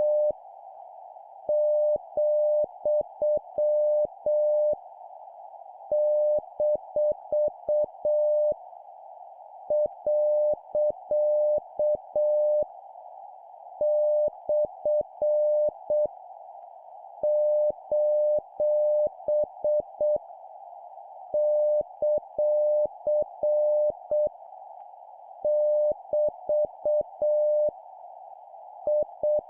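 Morse code practice: a steady mid-pitched beep keyed in dots and dashes at 7 words per minute, sending punctuation marks as clusters of about three seconds each with short pauses between. The beeps sit over a steady band of hiss like radio band noise.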